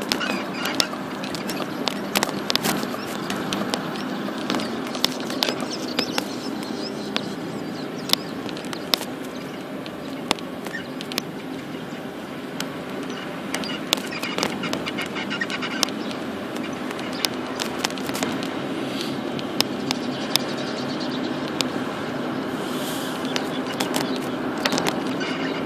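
Engine and road noise of a moving car heard from inside the cabin, with scattered short clicks and knocks.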